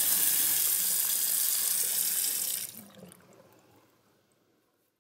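Water from a Moen Monticello two-handle bathroom faucet running steadily into a white sink basin, shut off about two and a half seconds in, after which the last trickle into the basin fades away.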